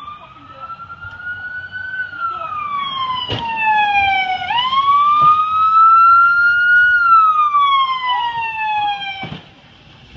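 Police car siren wailing loud, rising and falling slowly in pitch through two long cycles before cutting off near the end. Two sharp knocks come through it, about three seconds in and just as it stops.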